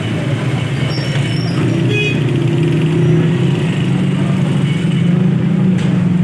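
Steady, loud low rumble of running engines, like road traffic.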